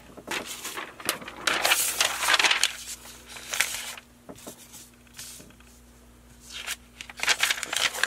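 A large sheet of paper rustling as it is handled and laid flat on the work mat. It goes quiet for a couple of seconds in the middle, then rustles again near the end.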